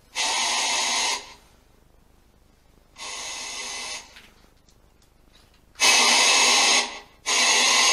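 A ghost-hunting spirit box playing short bursts of static-like hiss: four bursts of about a second each, with quiet gaps between them, the last two loudest.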